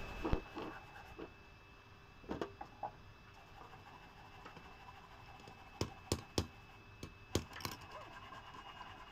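A handful of sharp metal knocks: a few scattered ones at first, then three in quick succession about six seconds in and two more a second later. They come as the red-hot leaf-spring steel is laid on the anvil and struck with a forging hammer.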